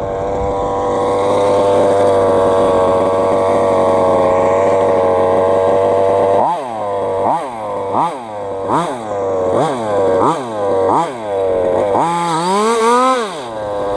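Engine of a fifth-scale FG Modellsport two-wheel-drive RC car, a small two-stroke petrol engine, held at steady high revs for about six seconds. It is then blipped in short revs about once a second, and ends with one longer rev that rises and falls.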